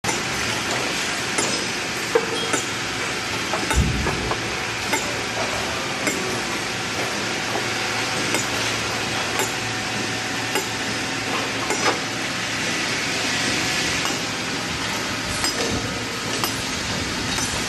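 Mallet striking a steel chisel held against the edge of a stone slab, hand-dressing the edge: sharp clinks at irregular intervals, roughly once a second, over a steady hiss of background noise.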